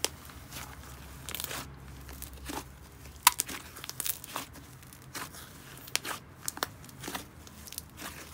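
Thick, dense mint-green slime with a butter-slime feel being stretched, folded and pressed by hand, giving irregular sharp bubble pops and crackly sizzles, the loudest pop about three seconds in.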